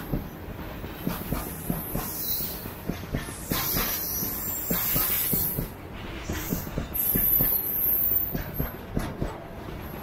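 Covered freight wagons of a long goods train rolling past close by, their wheels clattering over the rail joints in a quick, uneven run of knocks. A high hiss swells twice, around four and seven seconds in.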